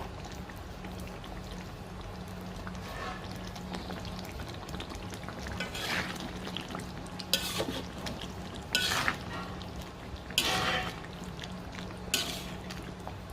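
Ayam masak merah (chicken in red chilli sauce) being stirred in a pot, with five louder scraping strokes of the utensil against the pot over a steady low hum.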